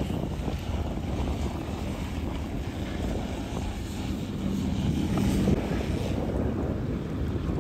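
Engine of a nearby commercial fishing boat running as a steady drone, its low hum growing louder about four seconds in and dropping away near six seconds.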